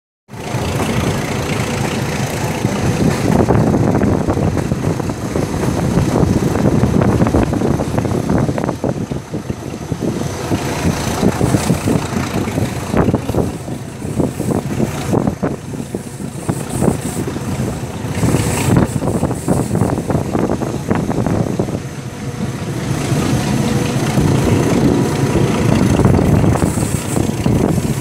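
Express train in motion, heard from on board: continuous loud running noise of the train moving along the track.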